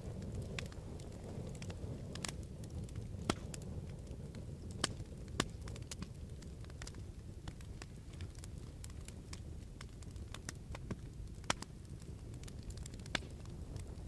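Small wood campfire crackling, with irregular sharp pops over a low steady noise.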